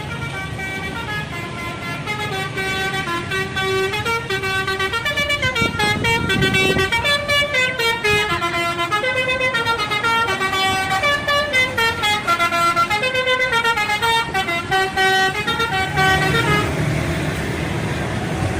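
Indonesian bus telolet horn, a set of electric trumpet horns, playing a fast tune of quick stepped notes that rise and fall. About 16 seconds in the tune stops, and vehicle noise remains.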